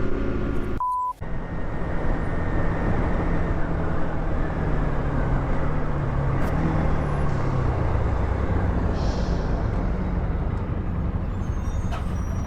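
Motorcycle riding: steady wind and road noise with the engine underneath, its note easing down slowly around the middle as the rider rolls off. Just under a second in, the sound cuts out briefly and a short beep is heard.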